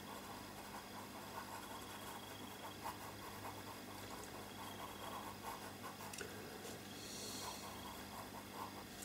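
Faint scratching of a blue pastel pencil stroking over pastel paper as colour is worked into a drawing, over a low steady hum, with a slightly stronger patch of scratching about seven seconds in.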